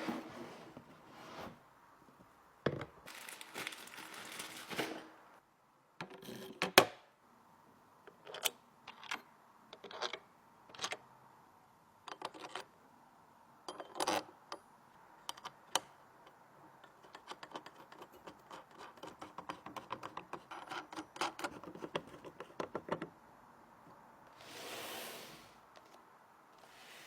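Computer parts and small hardware being handled during a PC build: scattered clicks and taps and stretches of rustling, with one sharp, loud click about seven seconds in and a dense run of small rapid clicks in the second half.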